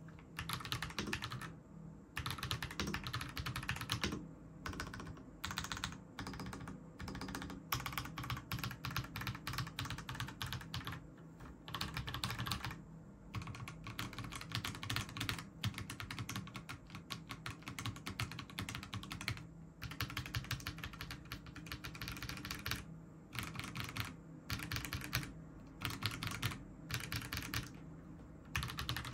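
Havit Gamenote KB885L mechanical keyboard fitted with KTT Wine Red switches being typed on: fast runs of keystroke clacks with short pauses between them.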